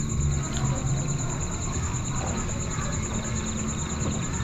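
Insects trilling steadily at a high pitch in the background, over a low, even background rumble.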